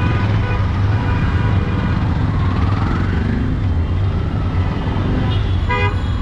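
Busy street traffic: a steady low rumble of idling and passing motor vehicles, including three-wheeled CNG auto-rickshaws, with faint voices. A short high tone sounds just before the end.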